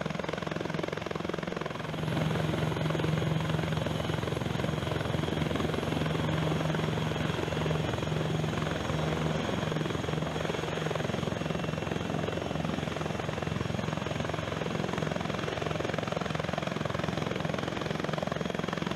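Leonardo AW149 twin-engine helicopter flying low, its rotor giving a steady fast thrum that gets a little louder about two seconds in.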